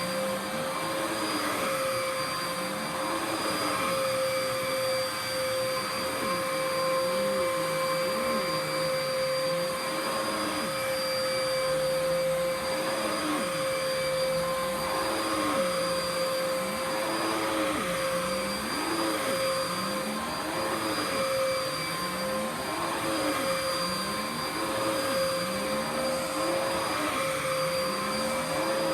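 Dirt Devil PowerMax Pet upright vacuum cleaner running steadily with a constant whine. Under it a lower tone sweeps up and down over and over, about once a second.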